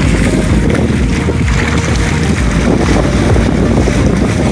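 Wind buffeting the microphone over sea water splashing and churning alongside a fishing boat.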